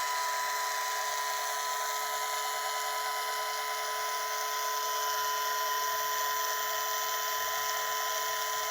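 Power tool spinning a wire wheel with a steady high whine, brushing rust off a rusted rotisserie part.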